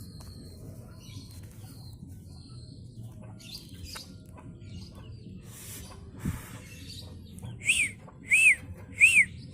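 Sooty-headed bulbul (kutilang) calling: scattered faint chirps, then near the end three loud, short rising-and-falling notes, evenly spaced under a second apart.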